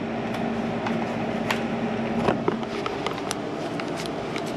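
Socket and ratchet work on a radiator mounting bolt: scattered metallic clicks and knocks. Under them runs a steady low hum that stops a little under three seconds in.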